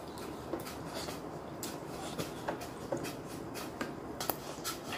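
Faint, irregular light taps and clicks of utensils against bowls and dishes, a dozen or so small strokes scattered across the few seconds.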